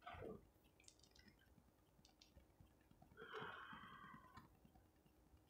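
Near silence: room tone, with a faint short sound right at the start and another, slightly longer faint sound about three seconds in.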